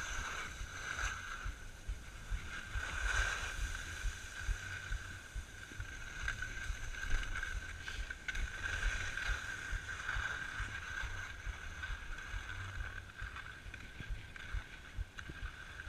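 Skis sliding and scraping over groomed piste snow on a downhill run, with wind rumbling on the camera's microphone; the hiss of the skis swells several times.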